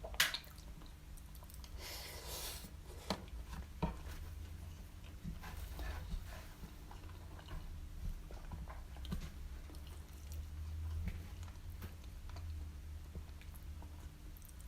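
Close-miked chewing of a mouthful of doner kebab meat, cheese and chips, with a sharp click just after the start, a brief rustle about two seconds in, and scattered small mouth and utensil clicks, over a steady low hum.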